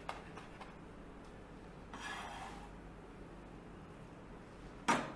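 Faint kitchen handling sounds: a soft rustle about two seconds in as chopped rue leaves are dropped by hand into a stainless steel bowl of shredded cabbage, with a few light clicks early and one sharp knock near the end.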